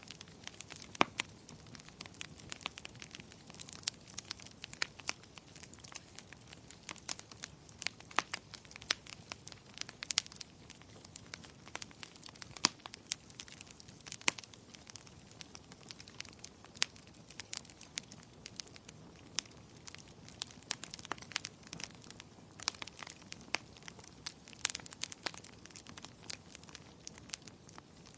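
Wood fire burning in a fireplace: irregular sharp crackles and pops over a soft steady hiss of the flames.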